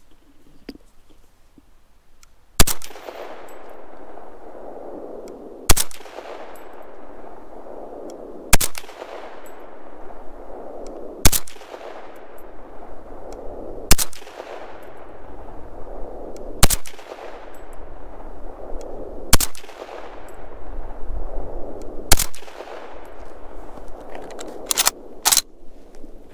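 Gewehr 43 semi-automatic rifle in 7.92×57mm Mauser firing eight single shots, evenly spaced about every two and a half to three seconds, each report trailing off in an echo. Two lighter clicks come near the end.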